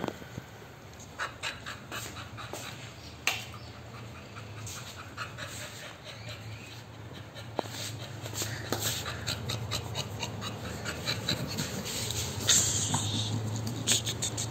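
American Bully dog panting, with scattered short clicks and scuffs as it plays on a tiled floor, louder in the last few seconds.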